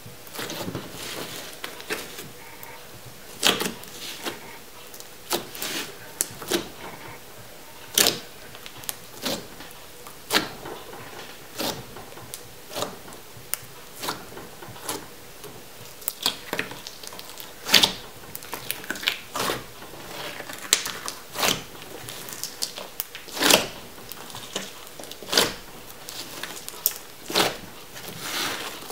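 A large batch of borax-and-glue slime squished and poked by hand, giving irregular sharp clicks and pops from trapped air.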